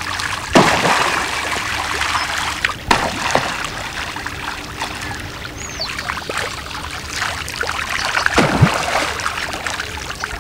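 Rain falling on a river: a dense patter of drops striking the water surface, with a few louder splashes among them.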